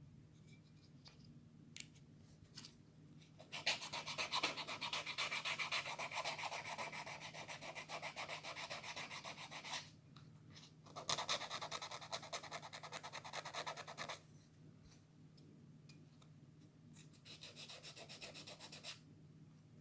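Wet sanding a die-cast metal toy car body by hand: sandpaper rubbing back and forth in quick, even strokes, in three spells with short pauses between, the first the longest.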